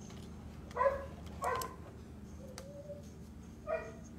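A dog giving short, sharp yips: three of them, about a second in, half a second later, and near the end, with a faint whine between.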